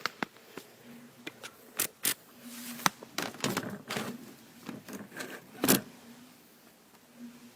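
Irregular clicks, knocks and scrapes of hands and tools working on a microwave's control panel, with a sharper knock near the end.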